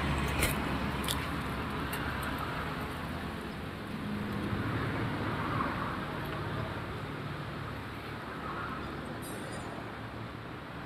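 Small Mitsubishi sedan pulling away at low speed, its engine and tyres a steady low rumble that slowly fades as it moves off.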